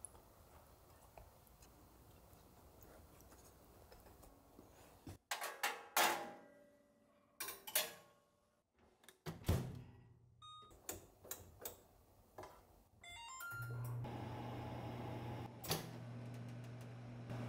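Light-wave (microwave convection) countertop oven being loaded and started: several sharp knocks and clatters, a few short electronic beeps from the control panel, then a steady low hum as the oven begins running for the last few seconds.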